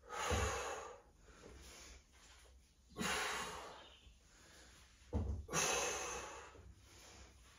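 Forceful breaths out from a woman doing dumbbell sit-up presses: three of them, about two and a half seconds apart. A dull low bump sits under the first and the last.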